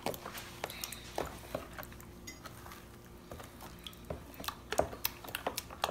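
Wooden spoon stirring thick sweet potato batter in a large plastic bowl, knocking and scraping irregularly against the bowl's sides, with a cluster of louder knocks near the end.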